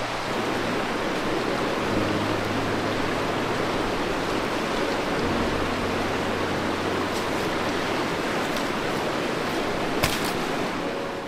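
Rushing river water, a steady loud hiss of flowing whitewater, with a single sharp knock near the end.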